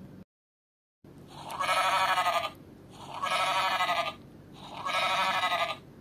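Recorded sheep bleating from a children's sound board book's built-in speaker: three long, quavering bleats, each about a second long, starting after a second of dead silence.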